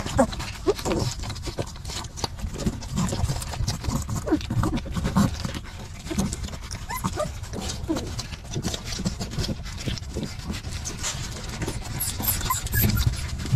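Newborn puppies whimpering and squealing in many short cries as they jostle to nurse from their mother, over steady soft clicking and rustling from suckling and shoving.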